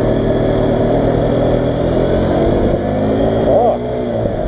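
125cc motorcycle engine pulling away and accelerating, its pitch climbing, heard from the rider's own bike.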